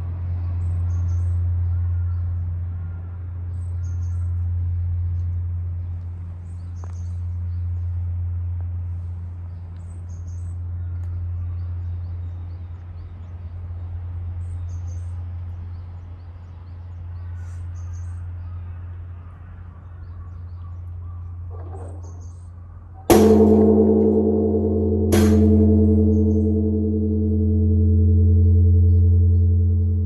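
Large Japanese temple bell (bonshō), rung as the morning bell by a swung wooden log. Its deep hum fades with a slow pulsing waver, then about three-quarters of the way through the log strikes with a sharp clang. A second knock follows about two seconds later, and a rich, pulsing ringing hum builds again.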